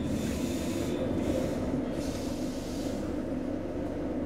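A Roslagsbanan electric commuter train passing close alongside: a rushing, hissing rumble that dies away about three seconds in. Under it, the steady low hum of the standing X10p train's own car.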